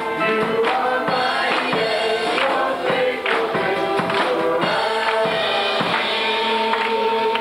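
Gospel-style congregational worship music: voices singing over an instrumental accompaniment, with hands clapping on a steady beat.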